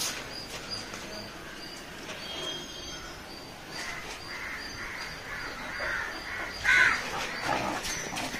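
Birds calling, with a faint high chirp repeating throughout and one short, louder call near the end.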